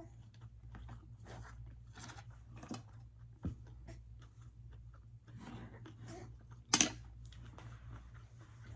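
A person chewing food close to the microphone, with soft wet mouth noises, over a steady low hum. A short dull knock comes about three and a half seconds in, and a sharp, louder noise near seven seconds.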